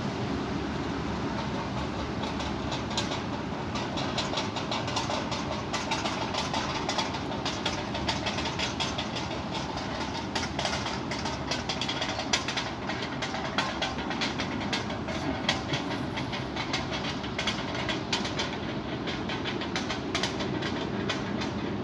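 Strong wind rushing steadily, with many sharp, irregular clicks and rattles through most of it.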